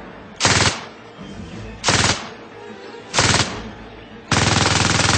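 MG 42 belt-fed machine gun firing four short bursts, each a rapid string of shots. The last burst is the longest, about a second.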